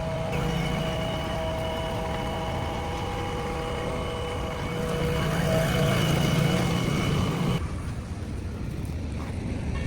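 JCB 3DX backhoe loader's diesel engine running, with a steady whine over its rumble. It grows louder about five seconds in, then drops away suddenly about three-quarters of the way through.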